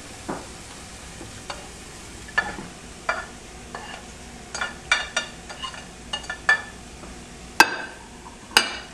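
Ground turkey and sliced bell peppers sizzling in a frying pan while being stirred, with a utensil scraping and knocking against the pan in irregular clicks; the two sharpest knocks come near the end.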